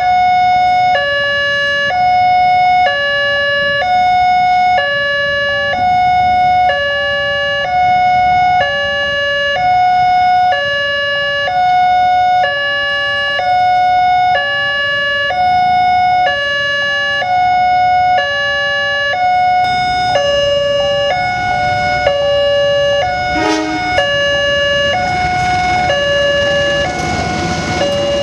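Railway level-crossing warning siren sounding a two-tone hi-lo wail, switching pitch about once a second. Around two-thirds of the way in, a second crossing siren of slightly different pitch sounds out of step with it, so the two clash. A rumble builds near the end.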